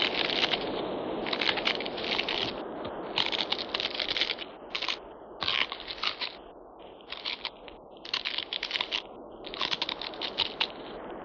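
Sound effect of the giant crab: irregular clusters of rapid clicking, crackling and crunching, meant as its claws clattering and crushing. The clusters come in bursts with short gaps, over a rushing background noise that fades about halfway through.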